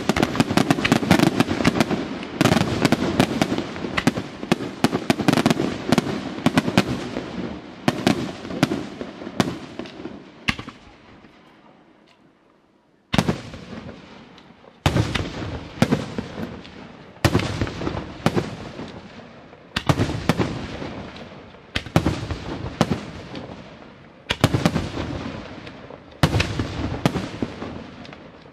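Aerial firework shells bursting. A dense volley of rapid bangs and crackle fades out about ten seconds in. After a brief lull, single loud shell bursts follow about every two seconds, each trailing off.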